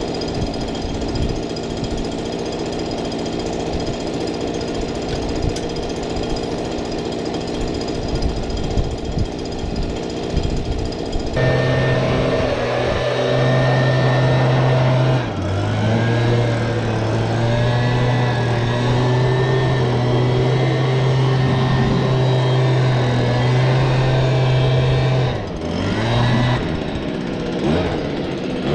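An engine running with a rattling clatter, then, from about 11 seconds in, a louder, steadier engine note whose pitch steps twice.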